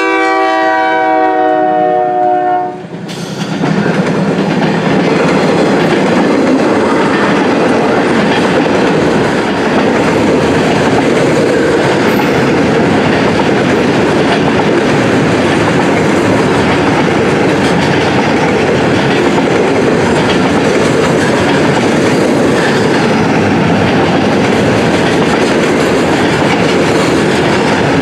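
A CN locomotive's air horn sounds a chord of several tones, cutting off about three seconds in. Then the diesel locomotives pass close by, and the rail train's loaded welded-rail cars roll steadily past with continuous wheel-on-rail noise.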